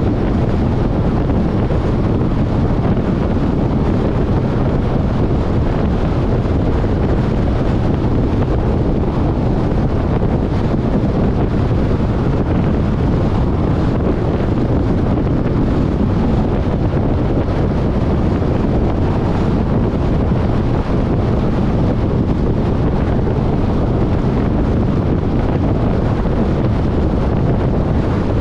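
Steady wind and road noise of a car being driven, an even deep rush with no change throughout.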